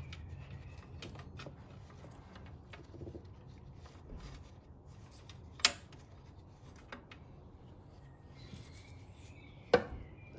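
Hands working small plastic parts on a car battery while its breather pipe is moved to the vent on the other side. There is light rubbing and handling throughout, with two sharp clicks, about five and a half seconds in and again near the end.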